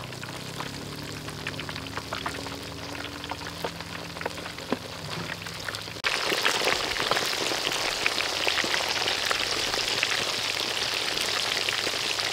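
Batter-coated chicken legs deep-frying in a wok of hot oil: scattered crackling pops at first, then from about six seconds in a louder, dense, steady sizzle.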